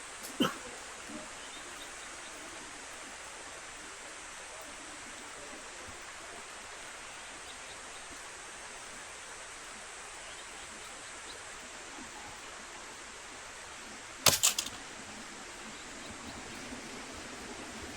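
Steady hiss of rain falling. A single sharp knock comes about half a second in, and a quick run of three or four sharp clicks or knocks, the loudest sound here, about fourteen seconds in.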